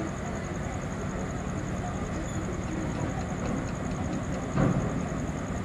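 Steady low rumble of a ferry's diesel engine running, with one brief louder thump about four and a half seconds in.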